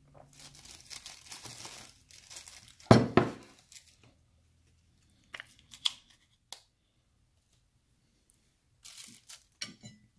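Plastic packaging crinkling and the peel-off lid of a small plastic portion cup being torn back, loudest about three seconds in. A few light clicks follow, and there is more crinkling near the end.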